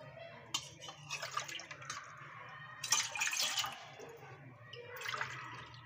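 Water poured from a steel measuring cup into a large, nearly empty metal pot, splashing onto the pot's bottom in separate pours with short pauses between them.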